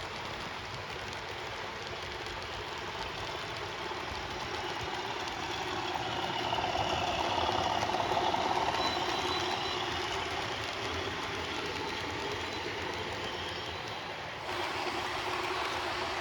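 Model railway locomotive running along the layout track. It grows louder about six seconds in as it comes close and then eases off again, and the sound steps up abruptly near the end.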